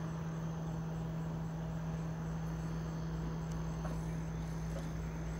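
Steady outdoor background at the beach dunes: a low, even hum with a faint, steady high tone above it and a few soft ticks, with no change throughout.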